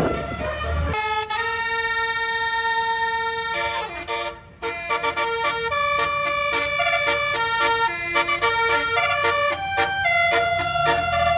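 A bus's 'telolet' multi-note air horn playing a tune: a long held chord, a short break, then a quick run of changing notes. A low engine rumble is heard just before the horn begins.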